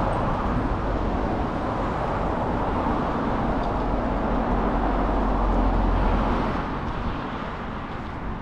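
Road traffic noise: vehicles going by on the road alongside, swelling to its loudest about six seconds in and then easing off.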